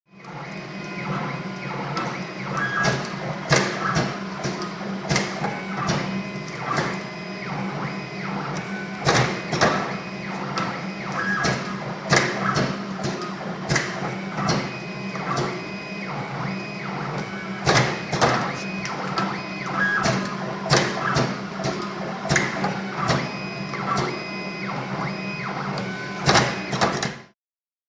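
Automatic wire cutting and stripping machine running: a steady motor hum under frequent, irregular sharp clicks and clacks from its cutting and stripping mechanism.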